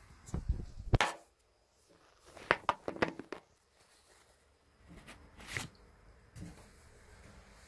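Scattered knocks and rubs, probably from a phone being handled and set down against the hard edge of a bathtub: two sharp knocks about a second in, a quick cluster around three seconds, and lighter taps near the end.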